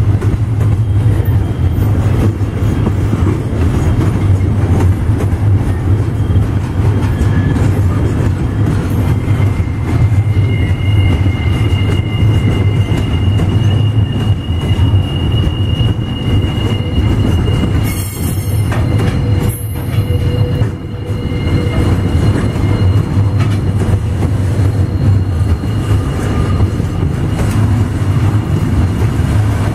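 Container wagons of a long, loaded freight train rolling past at low speed: a loud, steady low rumble of wheels on rail. Faint, thin, high wheel squeal comes in about a third of the way through and fades out later. A little past the middle there are two short, sharp noises.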